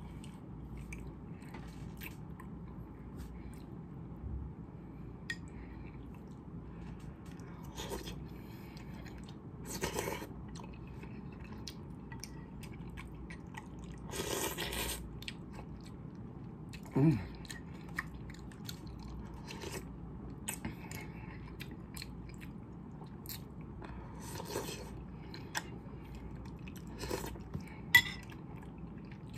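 A person eating instant noodles with boiled eggs: scattered slurps and chewing, the longest slurp lasting about a second midway. A few sharp clicks stand out over a steady low room noise, the loudest near the end.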